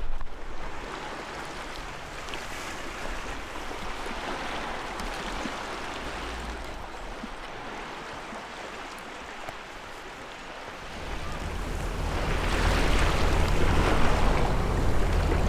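Sea waves washing on a shore, with wind on the microphone. About eleven seconds in it gets louder, with a heavy low rumble.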